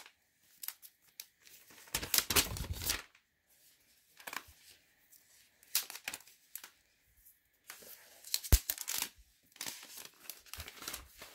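Crinkling and tearing of the thin protective wrap on a new laptop as it is pulled free and the laptop is handled, in irregular bursts. There is a sharp knock about eight and a half seconds in.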